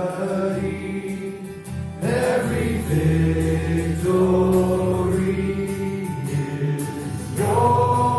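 Worship song sung by a group of voices with instrumental backing: long held notes that change pitch every couple of seconds.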